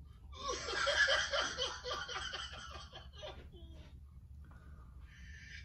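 A man laughing in short, breathy pulses, about five a second, for roughly three seconds, then fainter breathing.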